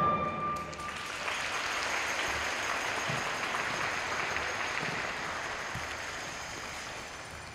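The program music ends on a held chord about a second in, and audience applause follows, slowly fading toward the end.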